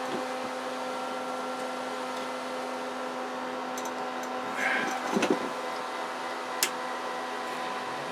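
Steady hum of bench equipment and cooling fans, with a few fixed whining tones. A short rustle of handling comes about five seconds in, followed by a single sharp click.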